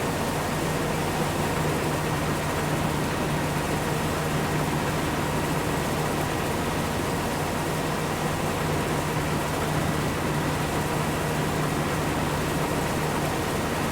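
Large farm machine running steadily: a continuous engine drone with a thin steady whine over it.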